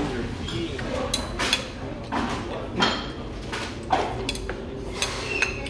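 Slurping spoonfuls of hot, spicy seafood soft tofu stew from a small bowl: a string of short, noisy slurps. A metal spoon clinks lightly against the ceramic bowl now and then.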